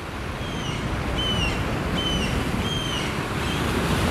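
Steady surf and wind noise from breaking waves, with a bird repeating a short, slightly falling call about five times.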